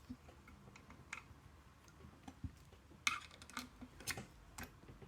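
Scattered small metallic clicks and taps of a bent-wire pick and screwdriver working a cabinet lock, with a few louder clicks from about three seconds in.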